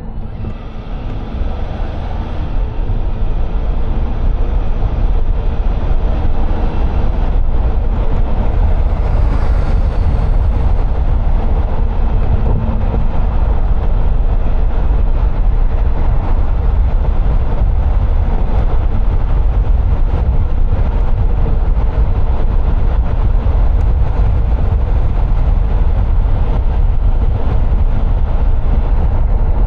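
A car driving: steady, loud low rumble of road and engine noise, swelling up over the first couple of seconds and then holding even.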